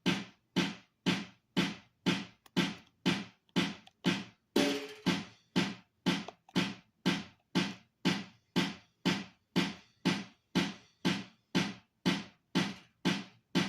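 An electronic drum sample retriggered about twice a second by the note-repeat function of a Donner Starrypad MIDI pad controller, each hit sharp and quickly decaying. Around four and a half seconds in, one hit carries a brief pitched ring.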